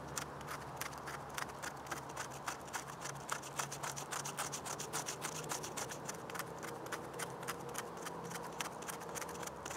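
Knife blade scraping silver birch bark into fine shavings for fire-lighting tinder, in quick, even strokes about three or four a second, thinning out near the end.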